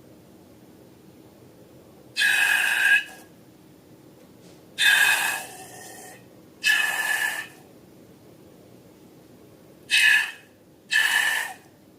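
Air rushing out of a balloon's stretched neck in five short hissing squeals, each half a second to a second long, with gaps between them.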